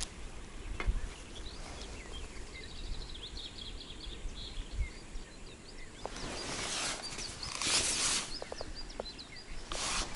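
Small birds chirping and twittering in a steady stream of short, high calls. Two short rustles come partway through the second half, with a few soft knocks.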